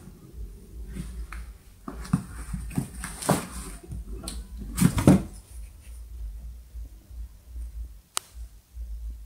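Rustling and knocking as a baby monkey scrambles over a cardboard box on a wooden cabinet and climbs down. The knocks are loudest about three and five seconds in, with a single sharp click near the end.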